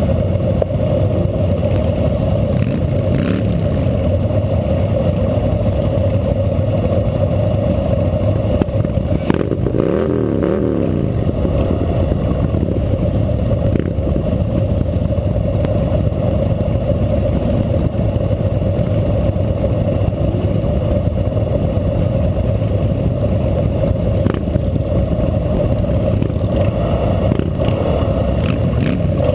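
Harley-Davidson Fat Boy Lo's air-cooled V-twin running steadily at idle among other idling motorcycles. About ten seconds in, a nearby engine briefly rises and falls in pitch.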